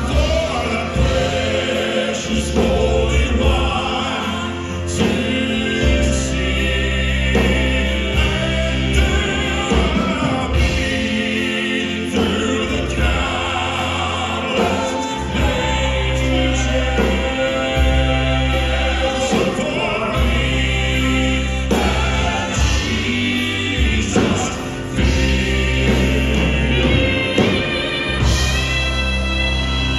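Southern gospel male quartet singing in harmony into microphones, with keyboard and drums accompanying, performed live.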